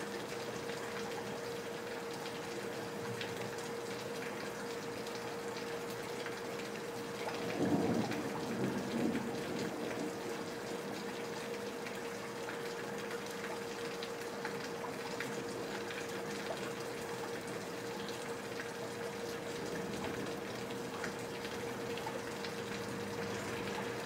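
Steady rain falling, with water pouring and splashing from leaky gutters, over a faint steady hum. A brief louder rumble swells up about eight seconds in and fades within two seconds.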